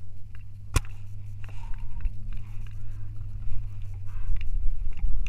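Paintball game sounds: one loud, sharp crack about a second in, with a few fainter pops through the rest. Under them runs a steady low rumble of wind and handling noise on the gun-mounted action camera's microphone.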